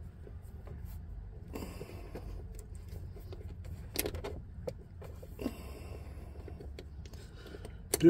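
Scattered light clicks and brief rustles from hands working a rubber washer onto a car door fitting, over a steady low hum; the sharpest click comes about four seconds in.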